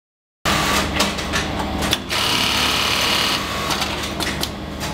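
Industrial mark-stitching sewing machine running at speed, starting abruptly about half a second in: a rapid, dense clatter over a steady motor hum, with a few sharper clicks.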